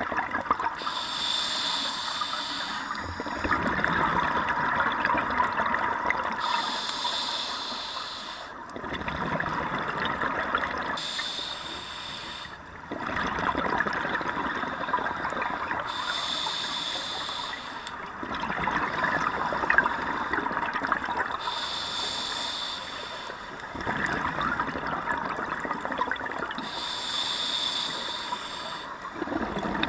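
Scuba diver breathing through a regulator underwater: about six slow breaths, roughly every five seconds, each a short hissing inhale through the regulator followed by a longer spell of bubbling as the exhaled air streams out.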